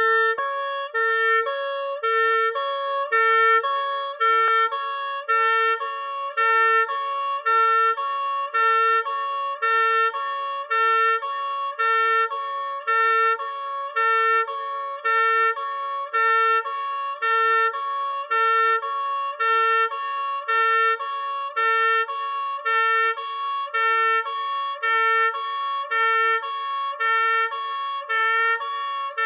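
Two-tone police siren sounding a hi-lo pattern, switching steadily back and forth between two fixed pitches without sliding between them.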